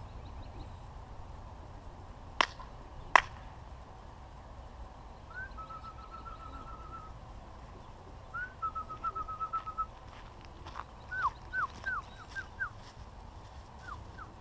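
A songbird singing clear whistled phrases: a rising note into a quick trill, twice, then a run of separate down-slurred notes. There are two sharp knocks about two and three seconds in.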